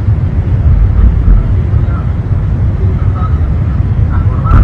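Loud, unsteady low rumble, with a muffled voice faintly under it.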